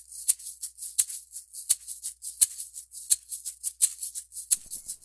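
Shaker percussion from a background music track, playing a steady rhythm of about four short hissy shakes a second with a stronger accent on every third or so, and no other instrument.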